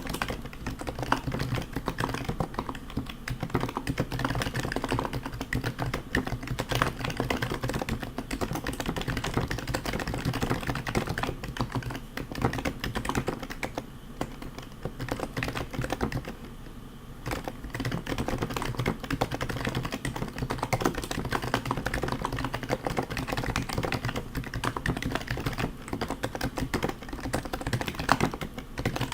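Fast typing on a custom HHKB JP Topre keyboard with heavy BKE domes, silent purple sliders and Hi-Pro keycaps: a dense, continuous run of keystrokes that eases briefly about halfway through.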